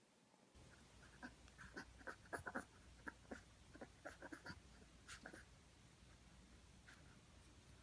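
Teacup Yorkshire terrier making quick little snorts and scuffing noises while humping a stuffed toy monkey, a faint run of short irregular sounds over a few seconds, then a single click near the end.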